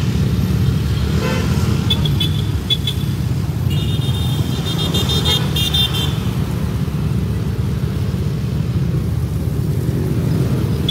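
Steady rumble of motorcycle and scooter engines and road noise while riding in a convoy, with horns beeping: a few short toots about two seconds in, then a longer run of honking from about four to six seconds.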